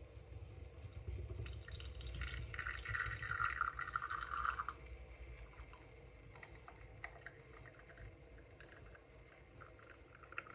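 Espresso pouring and dripping from the bottomless portafilter of a Flair 58 manual lever espresso maker into a glass as the lever is pressed. A louder hiss runs in the first half, then gives way to faint drips and ticks.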